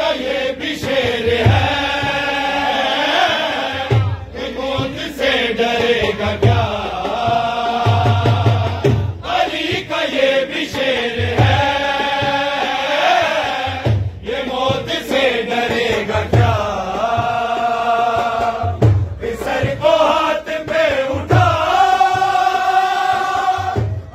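A group of men chanting a devotional song in Urdu in unison behind a lead reciter, in phrases of about two seconds. A low thud recurs roughly every second and a half, keeping the beat.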